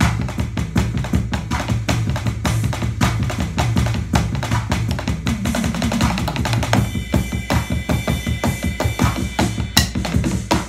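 Drum sounds played live from a keyboard: a dense, frenetic, off-beat run of kick, snare and rolls, with no steady groove. A steady high tone sounds for about three seconds past the middle, and one sharper hit comes near the end.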